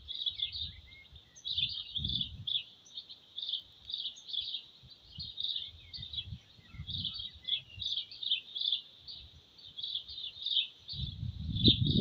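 Small birds chirping continuously, short high chirps repeating several times a second, over faint low rumbles. A louder low-pitched sound comes in about a second before the end.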